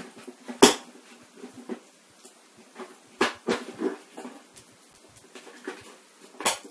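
A knife sawing through the plastic wall of a bleach bottle: squeaky creaks of the plastic as the blade works, broken by sharp cracks, the loudest about half a second in.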